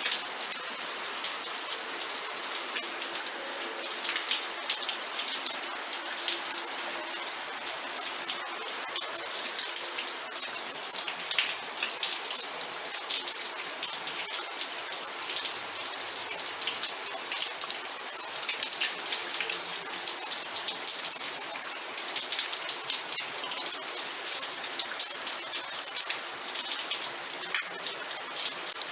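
Steady rain falling, with a dense patter of drops over an even hiss.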